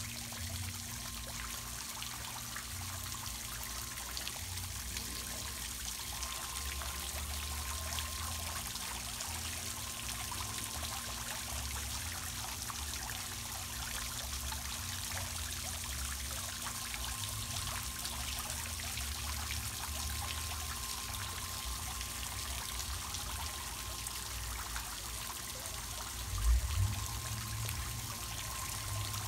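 Water trickling and splashing steadily over rocks in a small backyard pond stream, with a brief low thump near the end.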